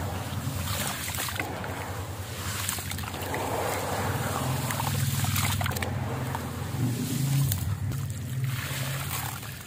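Water sloshing and churning in a plastic basin as hands swirl and stir it, a steady low swishing with a few small splashes. Near the end water streams off a concrete disc lifted out of it.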